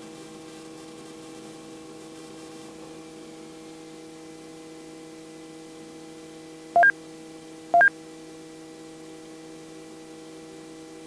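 Steady electrical hum in a Robinson R44 helicopter's intercom audio, with the rotor and engine noise largely shut out. About seven seconds in come two short, loud two-tone electronic beeps a second apart.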